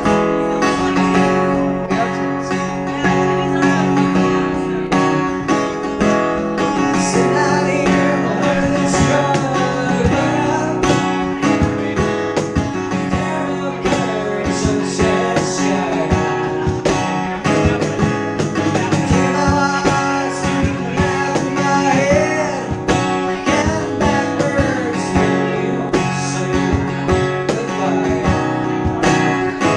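Live acoustic guitar strumming with a man singing a country song, and a cajon keeping the beat.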